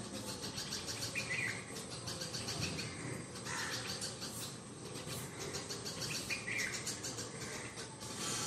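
Birds chirping now and then, several of the short chirps falling in pitch, over a steady pulsing insect chorus.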